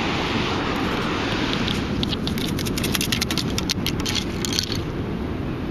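Perforated metal sand scoop being shaken, giving a quick run of clicks and rattles from about two seconds in until nearly five seconds, over a steady low rumble.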